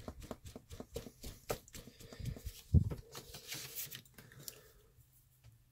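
A stiff paper menu being fanned quickly back and forth, flapping several times a second, with one dull low thump about three seconds in. The flapping dies away over the last second or two.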